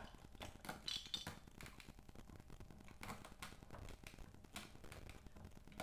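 Faint clicks, taps and short scrapes of a plastic toy knife against a plastic toy carrot and cutting board as the toy carrot is cut apart.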